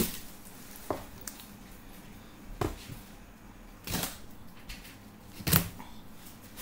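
Sparse handling noises: about four short knocks and rustles spread over a few seconds, over quiet room tone.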